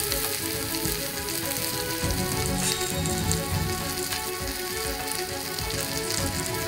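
A piece of meat sizzling and frying steadily on a hot non-stick griddle, with faint background music beneath.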